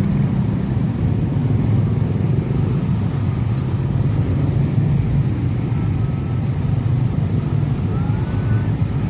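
Steady low rumble of road traffic, motor vehicles running past.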